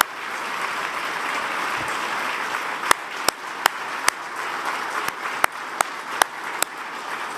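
Crowd applauding steadily. From about three seconds in, single sharp claps stand out over it in an even rhythm, about three a second, until shortly before the end.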